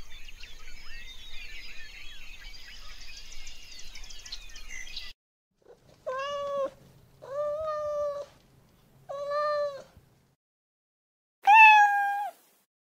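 A tabby domestic cat meows four times over about six seconds, each meow under a second long, the last one louder and higher-pitched. Before that, for the first five seconds, there is a background of outdoor chirping that cuts off suddenly.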